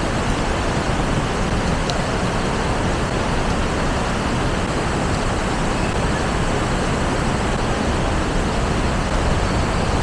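River water rushing over rocks in shallow rapids: a steady, unbroken rush.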